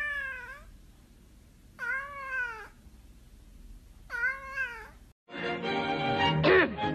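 Orange tabby cat meowing three times, about two seconds apart, each call rising then falling in pitch like a drawn-out "mom" or "momma". Music starts about five seconds in.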